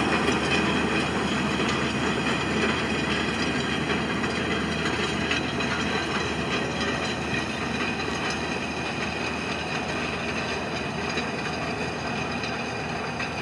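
Fendt Favorit 716 Vario tractor running under load as it pulls an Agro-Factory Gromix 7.5 roller over dry, loose soil. The engine and the rolling implement make a steady, dense noise that slowly fades as the rig moves away.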